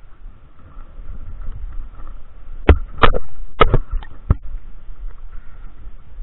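Low rumble of wind and water around a small boat, with a quick run of five sharp knocks on the boat in the middle.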